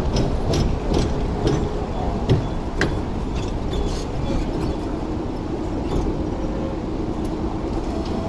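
Hong Kong double-decker tram rumbling steadily, heard from on board, with several sharp clicks and knocks in the first three seconds and a faint steady hum joining about halfway through.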